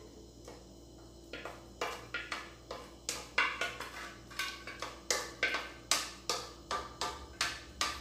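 Plastic spatula scraping against the inside of an aluminium saucepan in a quick run of short, sharp strokes, about two or three a second, starting a little over a second in. It is the sound of the last of a thickening soap paste being worked out of the pan.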